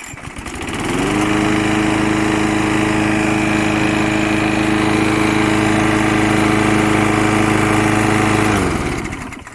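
Craftsman 6.75 hp walk-behind lawnmower's single-cylinder engine on a warm start: it catches at once and revs up within about a second, runs at a steady speed, then is shut off near the end and spins down.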